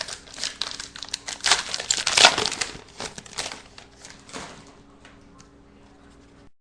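Wrapper of a trading card pack crinkling as it is torn open and handled, loudest a little past two seconds in and fading out after about four and a half seconds.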